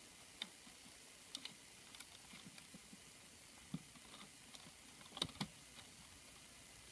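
Sparse light clicks and taps of hands handling PVC pipes, string and a thin stick, over near silence. The loudest pair of clicks comes about five seconds in.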